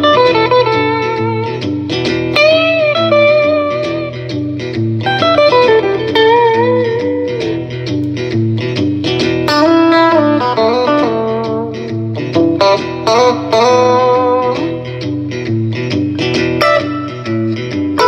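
G&L Legacy electric guitar with single-coil pickups played through an amplifier: a lead line of held notes bent up and shaken with vibrato, between quicker runs. It plays over a backing track with a repeating bass and chord pattern and a steady beat.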